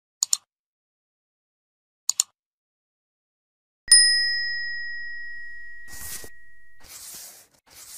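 Subscribe-animation sound effects: two quick pairs of mouse clicks, then a single bright bell ding about four seconds in that rings on and fades slowly, followed by short swishing noises near the end.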